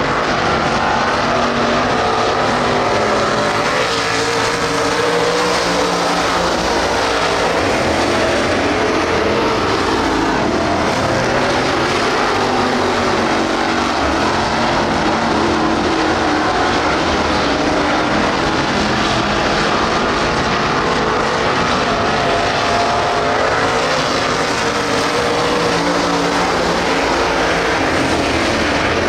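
Street stock race cars running laps on a dirt oval, several engines at once. Their loud, steady drone rises and falls in pitch as the cars pass.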